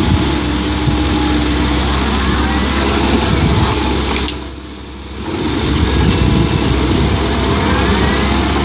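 Komatsu PC130-8 excavator's diesel engine running steadily while digging and loading. About four seconds in there is one sharp clunk, then the sound drops away for about a second before the engine comes back.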